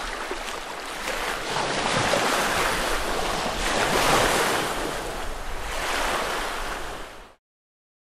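Lake waves washing onto the shore, swelling and easing about every two seconds, cut off abruptly near the end.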